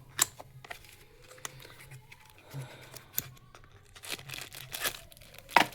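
A small accessory box being opened by hand: packaging crinkling and tearing, with several sharp clicks and snaps, the loudest just before the end.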